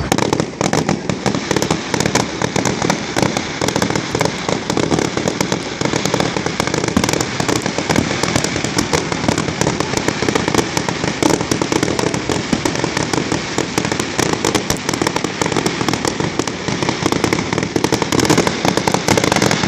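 Fireworks going off in a rapid, unbroken barrage of bangs and crackles, many each second.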